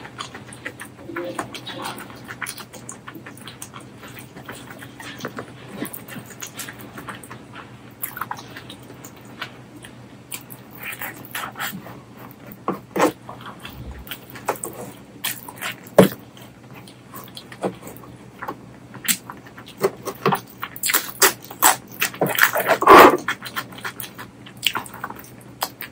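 Close-miked eating sounds: wet chewing and lip smacks with scattered sharp clicks, from mouthfuls of mutton curry and rice. The smacking grows busier and louder near the end.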